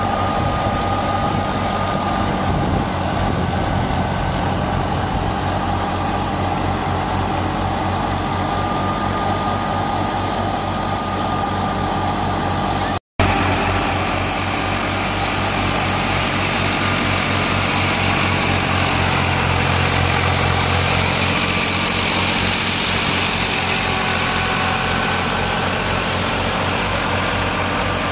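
Old Fiat 480 tractor's diesel engine running steadily while driving a wheat thresher, a continuous mechanical din with a low firing beat. The sound cuts out for an instant about halfway through.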